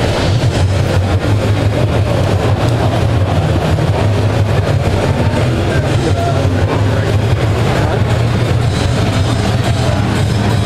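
Loud, steady rumbling din of a crowded convention hall floor, with no distinct voices standing out.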